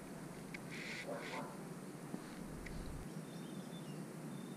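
Faint, steady wash of a shallow stream, with a short high call about a second in.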